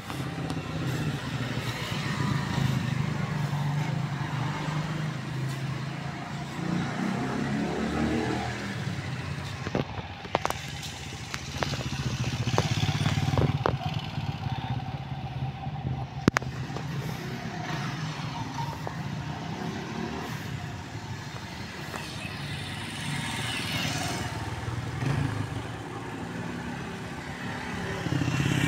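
Motorcycle engines running at low speed as bikes ride around cones, swelling louder as each one passes close and fading away, with a few sharp clicks in the middle.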